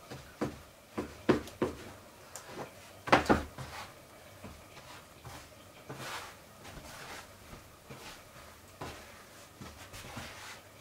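Bread dough being cut in half with a knife and handled on a floured wooden work table: a series of sharp knocks and taps, the loudest about three seconds in, then softer handling sounds.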